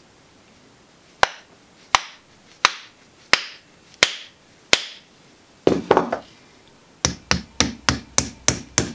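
Sharp wooden knocks as the new wooden handle of a rounding hammer is struck to seat the head on it. Six evenly spaced knocks come first, then a faster run of about three a second.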